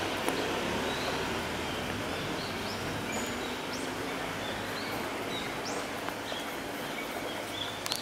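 A few short, high bird chirps scattered over a steady hiss of outdoor background noise.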